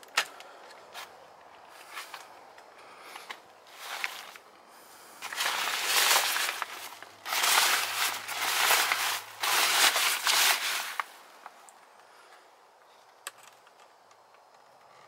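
A hooked clip-removal tool clicking and scraping against the plastic steering-wheel trim. Then about six seconds of loud rustling and crinkling as the deployed airbag's nylon fabric is pushed and handled.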